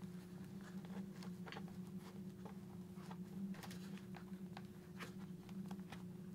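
Faint rustling and small clicks of hands working a padded helmet cheek pad and tucking wiring in behind it, over a steady low hum.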